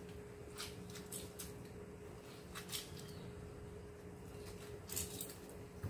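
Faint scattered clicks and squishes of lime halves being squeezed by hand over a plastic bowl, with a steady low hum underneath.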